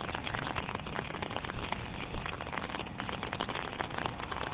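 Rain pattering close to the microphone: a steady hiss full of small, irregular ticks of drops.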